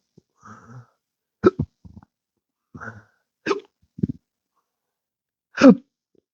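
A man's involuntary hiccups, a chronic case of intractable hiccups: about five sharp, short hiccups with breaths between them, the loudest and most voiced near the end.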